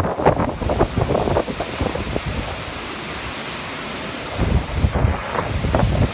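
Hurricane wind gusting and buffeting the microphone. It eases for a couple of seconds in the middle, then gusts hard again.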